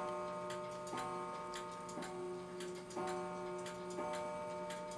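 A clock ticking steadily, a few ticks a second, over a set of steady ringing tones that renew about once a second.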